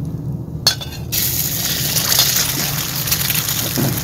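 Eggs tipped from a bowl into very hot oil (about 500 °F) in a cast iron wok. There is a light clink, then from about a second in a steady sizzle of the eggs frying.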